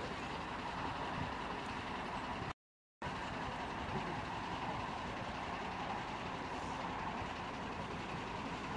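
Steady outdoor noise with no clear pitch, cut off completely by an audio dropout of about half a second some two and a half seconds in.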